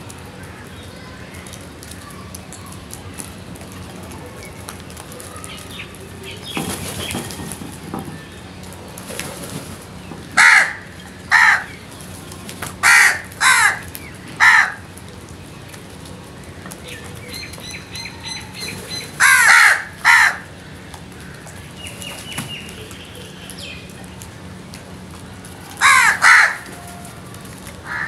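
House crows cawing: nine loud, harsh caws in four short bouts of two or three calls, with pauses of several seconds between bouts.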